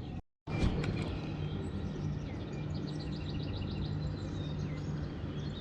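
Small birds chirping, with a quick run of short repeated chirps about three seconds in, over a steady low hum; the sound cuts out briefly near the start.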